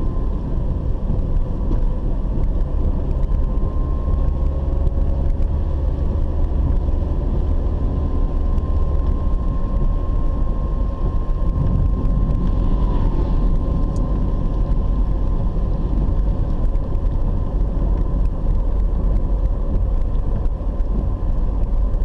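Car cabin noise while driving: steady engine and tyre rumble on a wet road, with a thin steady whine running through it.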